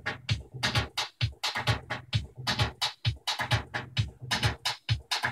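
Music with a steady drum-machine beat, about two kicks a second with crisp hits in between, played from a record on a freshly overhauled Aiwa full-automatic direct-drive turntable as a test after repair.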